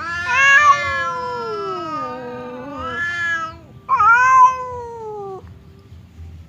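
Domestic cat yowling in a pre-fight standoff with another cat: two long, wavering calls, the first about three and a half seconds long, the second shorter and falling in pitch.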